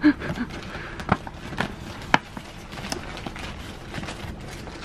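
Paper gift bag crinkling and rustling as it is handled, with several sharp crackles in the first three seconds.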